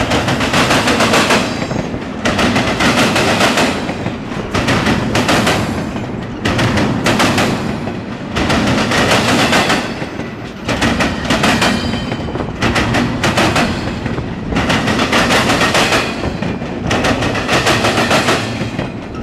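Intermodal freight train passing close by: steel wheels clattering in rapid clicks over the rail joints. The loud rolling noise swells and eases every second or two as the car trucks go past.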